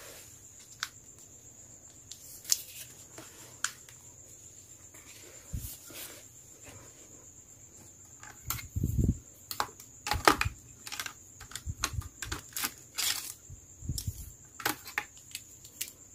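Irregular light clicks and taps, sparse at first and coming quicker and louder from about halfway, over a faint steady high-pitched whine.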